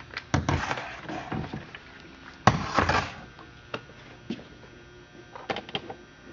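Stihl 034 chainsaw's chain brake being snapped on and released by hand: a series of sharp mechanical clicks and clacks, the loudest a clattering knock about two and a half seconds in, then a few lighter clicks near the end.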